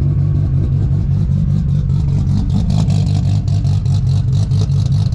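Nissan R32 GT-R's turbocharged RB straight-six running steadily as the car drives, with rapid regular ticking over it that the driver takes for a front tyre rubbing on the body because the car sits too low.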